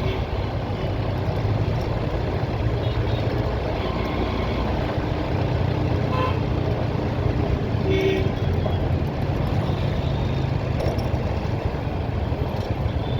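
Steady road noise of a vehicle ride through traffic, with short vehicle horn toots about six and eight seconds in.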